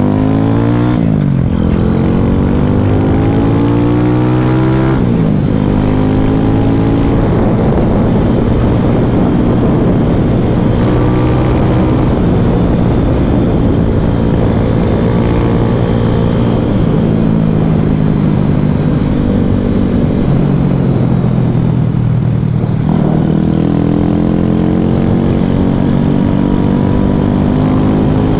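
Single-cylinder four-stroke engine of a 2021 Boom Vader mini bike (Grom clone) with a 141 cc big-bore kit and Nibbi carburettor, running under way. It revs up through the gears, its pitch climbing and dropping back at shifts about a second and about five seconds in, holding fairly steady through the middle, dipping, and climbing again near the end.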